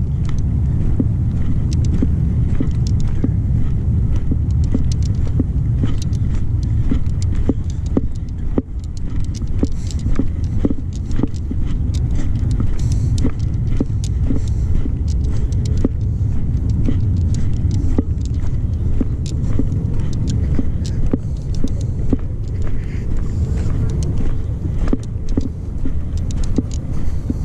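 Wind rumbling on the microphone, with the scuffing crunch of footsteps on a dry dirt path.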